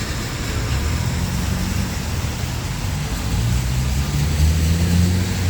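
City street traffic: a motor vehicle's engine running close by, its low hum growing louder in the second half, over a steady hiss of traffic noise.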